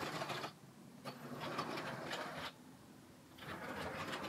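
LEGO 60337 Express Passenger Train running on plastic track under its Powered Up motor, a whirring rattle of motor and wheels that comes in stretches of about a second and a half, dropping away briefly between them.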